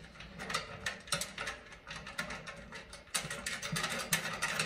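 A nut and washer being threaded by hand onto a bolt through a steel grill-frame bracket: a quick, irregular run of small metallic clicks and light scraping.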